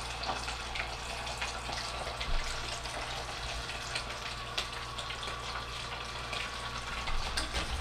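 Fish frying in a saucepan of hot oil: a steady sizzle, with a few light clicks along the way.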